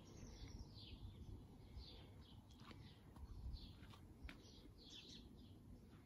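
Faint birdsong: short high chirps, many of them falling in pitch, repeating every second or so over a low, steady background rumble.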